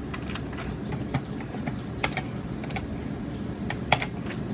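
A handful of sharp, scattered clicks, like single computer keys or mouse buttons being pressed, over a steady low hum.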